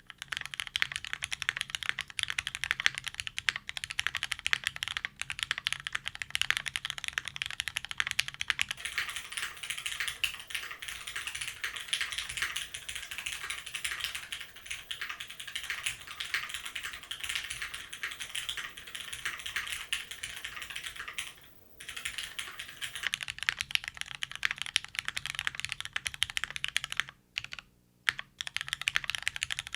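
Custom mechanical keyboard typed on quickly and continuously: lubed Cherry MX Black linear switches in an aluminium plate with a gummy O-ring mount, under GMK doubleshot ABS keycaps. The keystrokes make a dense clacking, with a brief pause about 21 seconds in and another around 27 seconds in.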